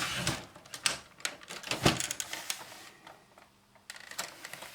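Scattered sharp clicks and knocks from the satellite receiver's case parts being handled, with the loudest knock about two seconds in.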